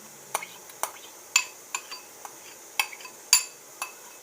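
A spoon clinking against a bowl about seven times at irregular intervals, each a sharp metallic clink with a short ring, as soaked oats are spooned into the mixer bowl.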